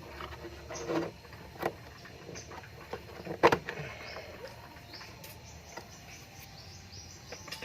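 Scattered clicks and knocks of tools and metal refrigerator pipework being handled, the loudest about three and a half seconds in. Faint bird chirps in the background in the second half.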